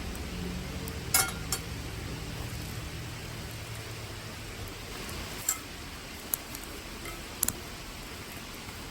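A few short, sharp clinks and clicks, about six, scattered over a steady low hiss: two about a second in, then more in the second half, the last two close together.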